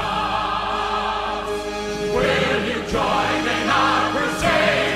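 Choir and orchestra holding long sung chords, the voices swelling into new chords about two seconds in and again near the end.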